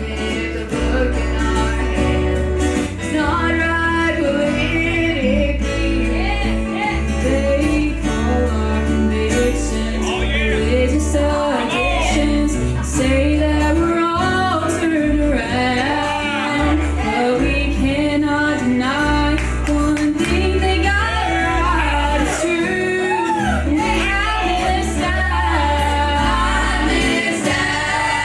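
Live gospel music: a small group of male and female voices singing together with instrumental accompaniment.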